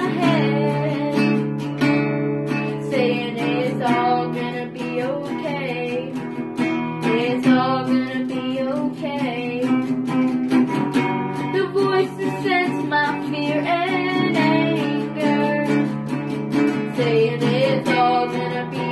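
A child singing a song while strumming chords on a small acoustic guitar.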